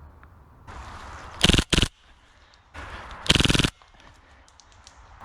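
Airsoft gun firing on full auto: two short bursts about a second and a half in, then a longer burst of about half a second past three seconds.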